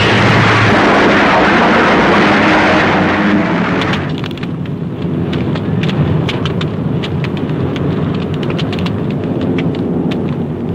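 Soundtrack of a crash-landed warplane wreck burning: a loud rushing roar for about four seconds, then it drops to a lower rumble with dense crackling.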